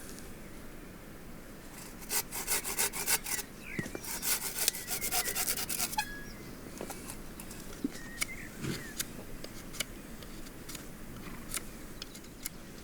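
A log being worked by hand with a cutting tool. Two runs of quick, even strokes come about two and four seconds in, then scattered knocks and scrapes on the wood.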